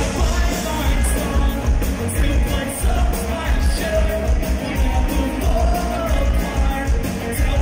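Live rock band playing loud: a male vocalist singing over electric guitars and drums with heavy bass.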